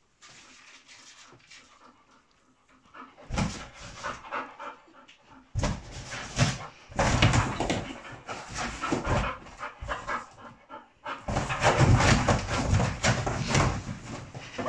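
A bull terrier panting and scrabbling at a large cardboard box with its paws and muzzle. The cardboard rustles and thumps in bursts. It is faint for the first few seconds and loudest near the end.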